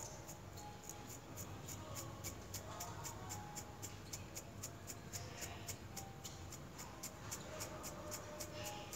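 Faint background music with a steady, quick ticking beat.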